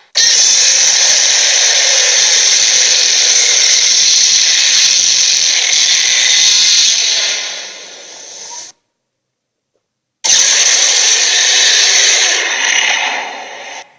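Two dragon sound effects, each a harsh, hissing roar with no clear pitch. The first lasts about eight seconds and fades out; after a short silence a second, shorter one follows and also fades away.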